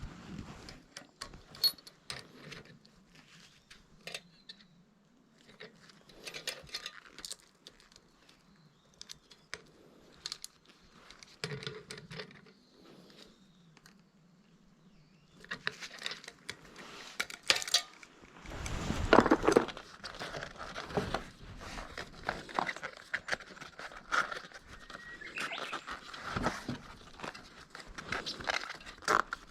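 Small metal tools and bicycle parts clinking and clicking while a bike's rear wheel and cassette are worked on. Scattered light clicks give way to busier, louder clattering and handling noise in the second half.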